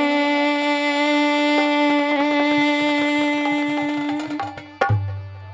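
Harmonium holding one steady note, with quick hand-drum strokes beneath it. A loud drum thump comes near the end, and the music then drops away.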